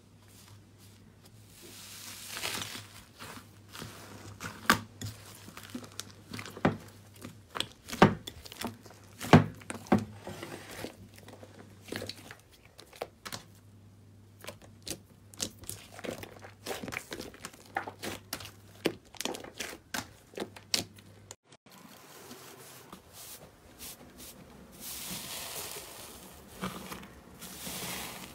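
Hands pressing, stretching and squeezing slime: sticky crackles, pops and clicks, with a steady low hum under the first part. About two-thirds of the way in the hum stops and a softer, airy crunching of fluffy cloud slime follows.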